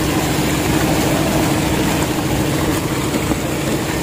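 Engine on a bagang lift-net fishing boat running steadily, a constant hum with a noisy wash over it.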